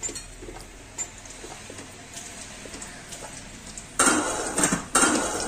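Serving spoon working cooked rice in a steel bowl: light clicks and scoops, then two loud scraping strokes against the bowl about four and five seconds in.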